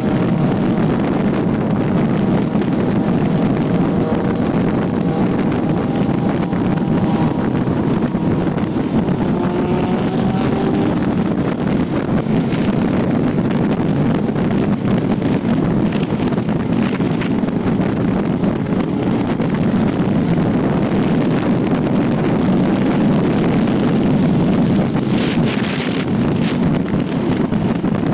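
Heavy wind rushing over the microphone on a Triumph Trident 660 motorcycle at highway speed. The bike's three-cylinder engine is faintly audible underneath, its pitch shifting a little about a third of the way in.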